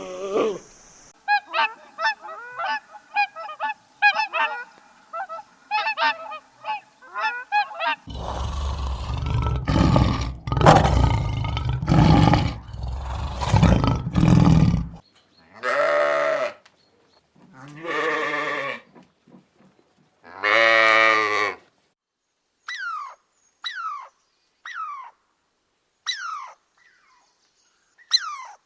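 A sequence of different animal calls: rapid chattering calls, then a loud, rough, deep call lasting several seconds, then three drawn-out honking calls, then a run of short falling whistles.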